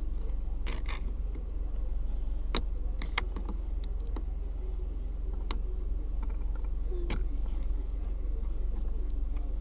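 Scattered sharp clicks and knocks of plastic interior console trim and its clip being handled and pushed into place, over a steady low hum.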